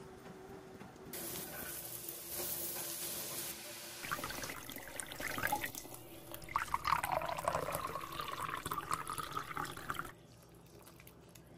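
Pot of soup boiling on an electric stove, bubbling and splashing with an irregular watery crackle. The sound drops to a low hush near the end.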